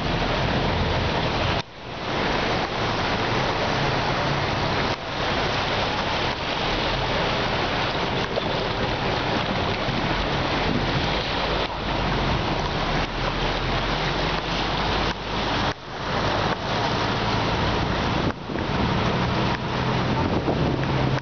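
A bus wading through deep floodwater: a loud, steady rushing of water churned and sprayed by its wheels, with the engine's low drone underneath. The noise drops out sharply for a moment a few times.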